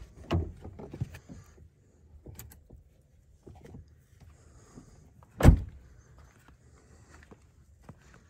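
Door handling on a 2017 Toyota Tacoma pickup: a thump just after the start and a few light clicks, then the driver door shut with one loud thump about five and a half seconds in.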